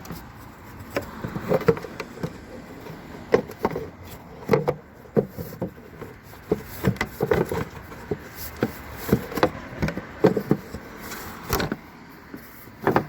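Irregular clicks, taps and knocks of a plastic tail-light housing being handled and fitted back into a car body, its hooks being lined up with their slots.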